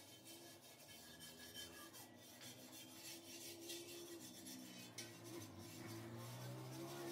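Scraping and rubbing strokes of a small hand tool against the inside of a rusty steel hoe blade wet with liquid, faint and repeated, over a steady low drone of tones.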